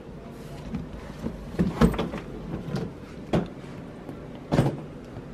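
A suitcase being handled and moved by its handle: a few knocks and thumps, the loudest about two seconds in, one more a little after three seconds and another near the end, with rustling handling noise between.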